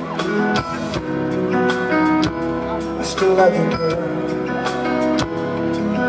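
Live R&B band playing a slow instrumental passage: sustained chords over a drum kit's slow, steady beat.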